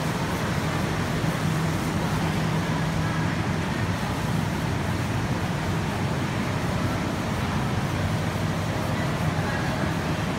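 Fresh pho noodle production-line machinery running steadily, a constant mechanical noise with a steady low hum underneath.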